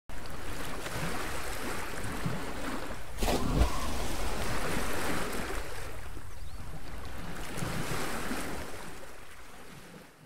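Ocean waves washing in, with a louder surge about three seconds in, fading out near the end.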